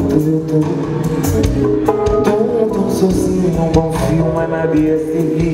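Live band music with drums and percussion, electric guitar and keyboard, and a man singing into a microphone over it.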